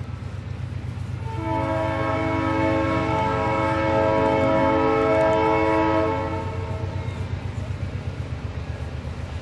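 Steam locomotive whistle of Nickel Plate Road 2-8-4 Berkshire No. 765, sounding one long chime blast of about five seconds starting about a second and a half in, over a steady low pulsing rumble.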